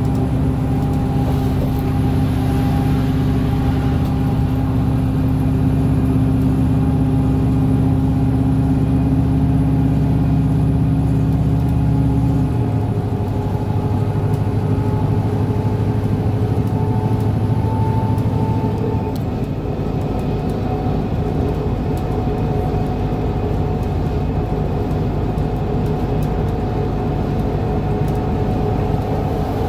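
Cabin sound of a New Flyer D60LF articulated diesel bus cruising at highway speed: a steady engine drone under road and tyre noise. About halfway through, the low engine note drops abruptly and then runs on steady at the lower pitch.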